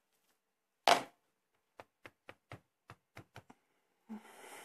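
Hard plastic stamping supplies handled on a tabletop craft mat. A sharp clack about a second in, then a run of light quick taps, about five a second, and a short soft rustle near the end.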